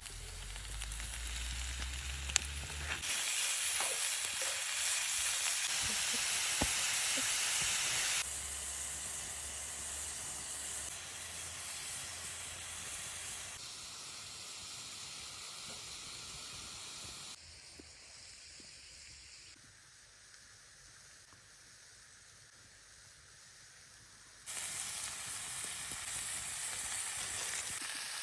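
Meat frying in a pan, a steady sizzle with a few sharp pops. The loudness jumps up and down abruptly several times, and is quietest for a few seconds past the middle.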